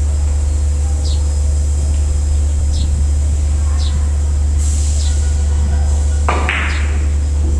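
Cue striking the ball on a carom billiards table a little over six seconds in: one sharp click followed by a short burst of noise. Under it runs a steady low hum, with faint high chirps about once a second.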